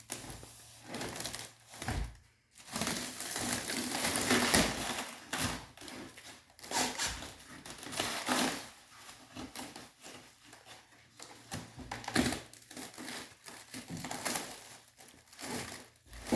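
Packing material being crumpled and torn off while a crated machine is unwrapped: irregular crinkling and rustling that swells loudest a few seconds in and comes and goes after that.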